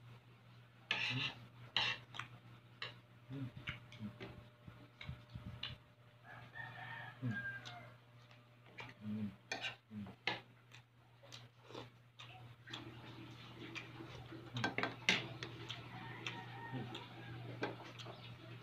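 Eating sounds: a spoon clicking and scraping in a plastic food container, and chewing, with a rooster crowing in the background about a third of the way in.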